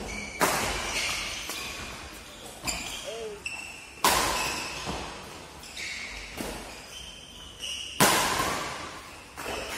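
Badminton rackets striking a shuttlecock in a fast doubles rally: sharp cracks about every one to two seconds, echoing in a large hall.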